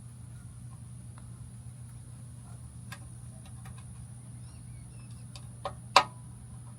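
Scattered light clicks and taps over a steady low hum, with a sharp knock about six seconds in, the loudest sound.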